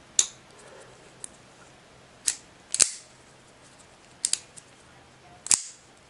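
Leatherman C303 folding knife being worked open and shut with its blade launcher: about five sharp metallic clicks spread unevenly, as the blade is pushed out and snapped into place and the liner lock engages and releases.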